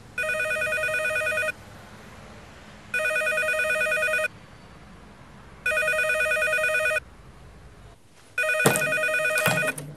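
A home telephone ringing with a warbling electronic ring: four rings of about a second and a half each, with pauses of about the same length between them. During the last ring, near the end, there are a few sharp knocks.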